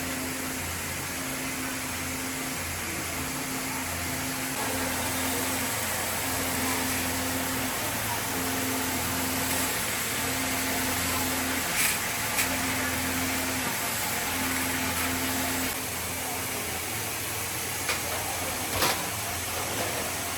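A woodworking machine running steadily, its low hum joined by a tone that cuts in and out about once a second, with a few sharp clicks around the middle and again near the end.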